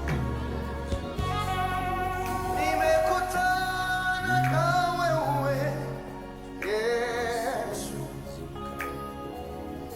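Gospel worship song: a singer's wavering, held notes over instrumental backing.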